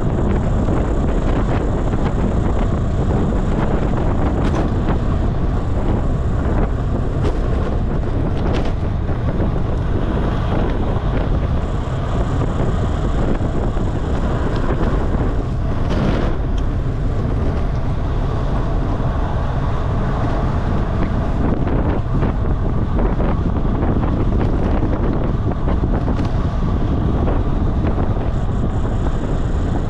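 Wind buffeting the microphone of a rider's camera during a fast bicycle descent: a steady, loud rush strongest in the low end, with a brief knock about halfway through.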